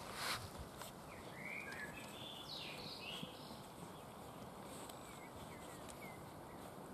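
Weimaraner puppies feeding from metal bowls on grass: faint eating noises and a single bowl knock just after the start. A few short high chirps come a second or two in.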